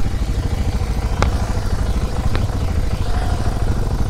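Off-road motorcycle engine idling with a steady low pulsing, with two sharp clicks about a second and two seconds in.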